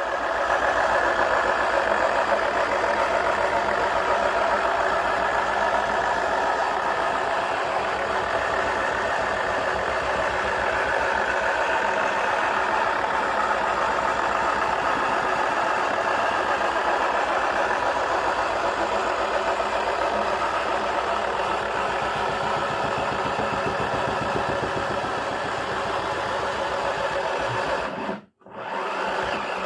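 Toy washing machine (Wacky Washer) running, its small motor whirring steadily; the sound cuts out for a moment near the end.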